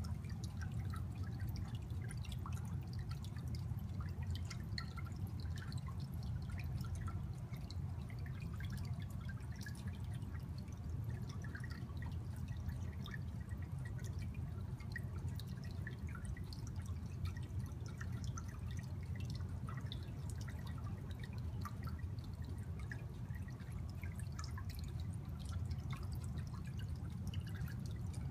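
Aquarium filter running: water trickling and dripping back into the tank, with many small irregular drips over a steady low hum.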